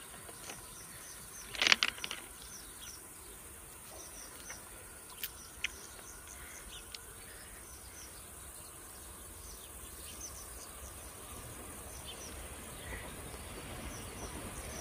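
Quiet outdoor ambience: a steady high insect buzz with many short bird chirps. A brief loud cluster of clicks about two seconds in, and a low rumble slowly building toward the end.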